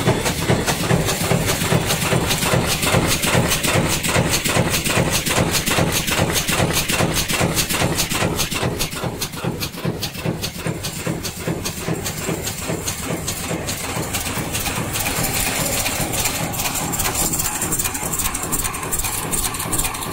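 Aerosol can dome and cone making machine running: a fast, even clatter of repeated strokes over a steady mechanical hum, the clatter easing into a more even hum with a high hiss in the later part.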